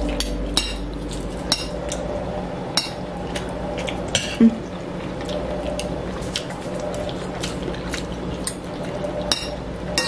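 Metal spoons and forks clinking and scraping against ceramic bowls during a meal, in scattered irregular clinks over a steady low background hum. A brief low pitched sound about four and a half seconds in is the loudest moment.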